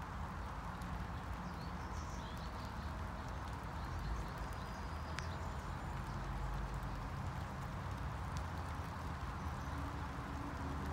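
Steady rain falling on a backyard lawn, an even hiss over a low rumble, with a few faint high chirps about two seconds in.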